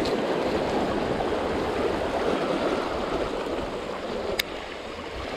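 Seawater washing on the shore with the rising tide, a steady rush that slowly fades over about four seconds. A single sharp click about four and a half seconds in.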